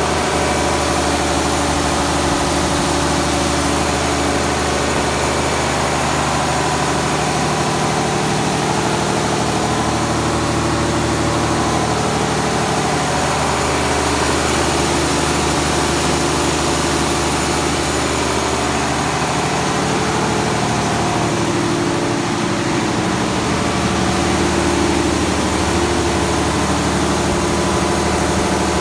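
1972 Dorman 6LE six-cylinder diesel engine running steadily, driving a 110 kVA alternator with no load on it.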